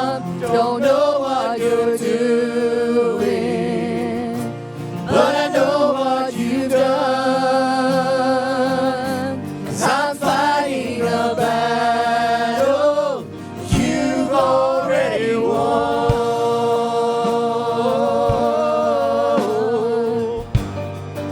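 Gospel-style worship song sung by a group of voices over instrumental backing, in long held lines with vibrato that come in phrases a few seconds apart.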